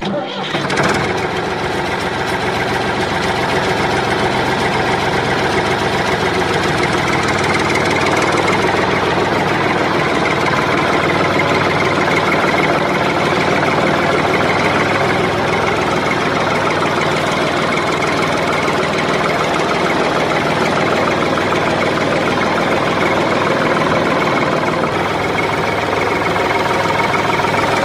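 Tractor diesel engine idling steadily, with an even, unchanging running sound throughout.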